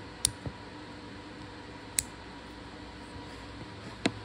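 A few sharp plastic clicks and taps, spread out, as the parts of a PREH ME5A push switch are handled and the button is fitted back in, over a steady faint hum.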